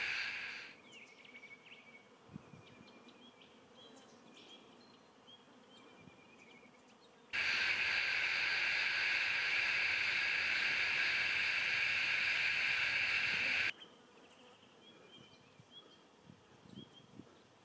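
A loud, steady insect buzz that cuts in and out abruptly: for the first moment, then again for about six seconds in the middle. Between these stretches there is faint outdoor ambience with short high chirps.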